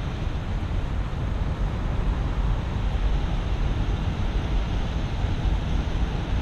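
Steady low rumble of wind buffeting the microphone, mixed with the distant running of truck engines in a large parking lot.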